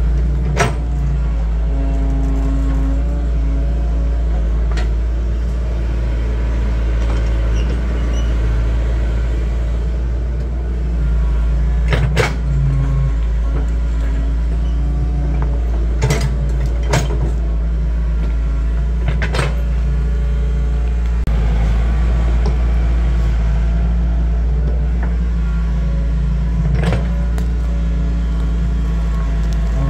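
Excavator's diesel engine running steadily under load, with a sharp knock now and then, about six in all.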